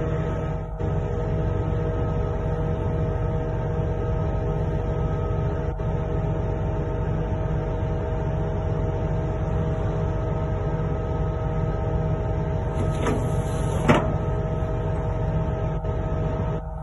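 Flatbed tow truck's hydraulic winch and bed running steadily with an even machine whine over a low hum, pulling the car onto the bed. Two brief knocks about a second apart near the end.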